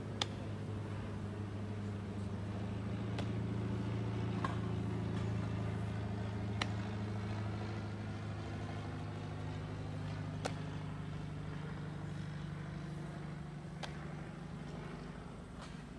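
Steady low engine drone of a passing motor vehicle, swelling about four to six seconds in and slowly fading, with about six sharp knocks scattered through it.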